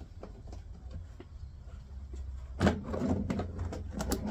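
Hands working on the motorcycle's fuel tank as the gas cap is taken off: a sharp knock about two and a half seconds in, then several clicks and rattles.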